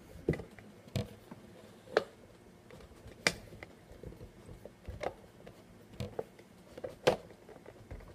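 Hard plastic fingerboard ramp pieces knocking and clicking as they are pressed and fitted together by hand: scattered sharp taps, roughly one a second.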